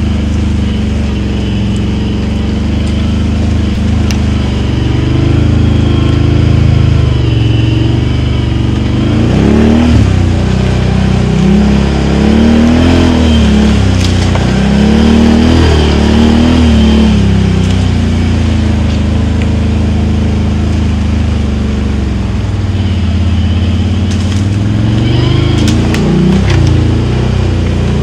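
Can-Am Outlander XMR 1000 ATV's Rotax V-twin engine through dual slip-on exhausts. It runs steadily at first, then revs up and down several times in quick succession from about nine seconds in, with a couple more revs near the end.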